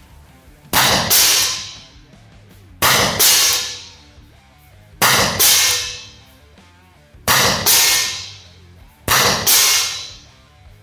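A T4E TP50 Gen2 .50-calibre CO2 pistol fired five times, about every two seconds. Each sharp gas shot is followed about half a second later by the crack of the ball hitting the target at 30 m, which still strikes with plenty of force.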